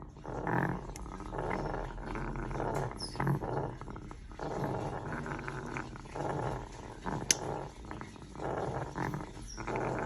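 Nesting African grey parrot growling in repeated harsh bursts, the rasping growl the birds give when guarding their eggs. A few faint high chirps and one sharp click about seven seconds in sound between the bursts.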